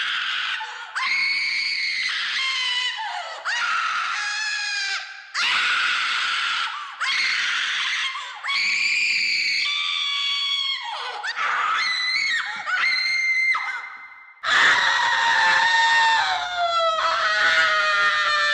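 A string of sound-effect screams, one after another, each a second or two long with short breaks between them. About two thirds of the way through comes a longer, louder scream whose pitch slides down at the end.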